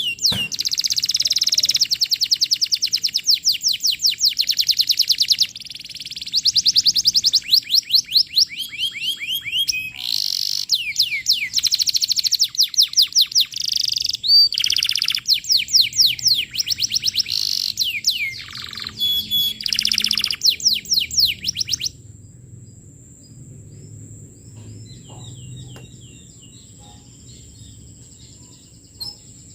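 Canary singing a loud, fast song of rolling trills, each a quick run of the same sweeping note repeated many times a second. The song stops about three quarters of the way through, leaving only faint scattered chirps.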